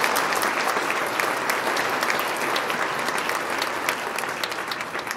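Audience applauding, many hands clapping together, gradually fading toward the end.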